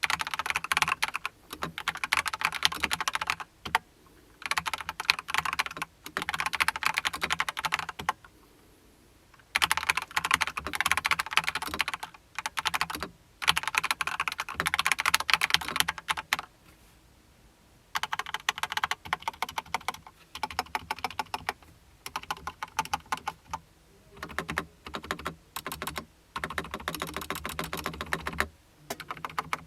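darkFlash GD100 mechanical keyboard with yellow linear switches being typed on, rapid keystrokes clacking in fast runs. There are brief pauses between runs, and two longer breaks of about a second and a half each.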